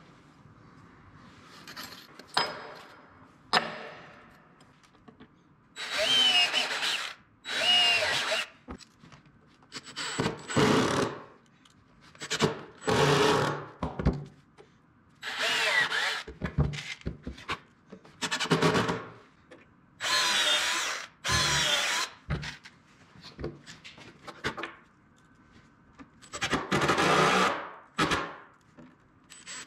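Cordless power driver sinking screws through metal angle brackets into wood, in about nine separate bursts of half a second to a second and a half each, with short pauses between them. A couple of sharp clicks come in the first few seconds.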